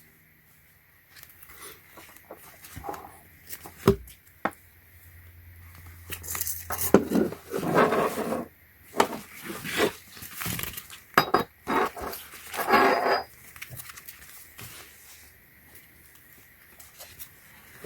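Racing harness being unpacked by hand: plastic packaging rustling and tearing, with the metal buckle hardware clinking a few times and a single knock early on.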